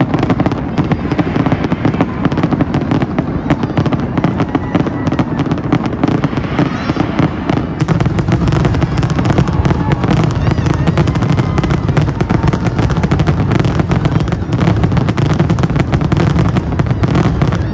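Fireworks bursting in a rapid, continuous barrage of bangs and crackles over a steady low rumble, growing busier about halfway through.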